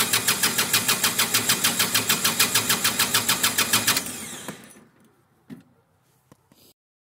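Engine cranking over on its electric starter in a fast, even chugging without catching. The cranking stops about four seconds in and spins down, followed by a few faint clicks.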